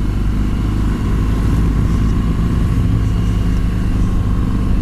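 BMW R1200GS liquid-cooled boxer-twin engine running steadily while the bike is ridden at an even pace.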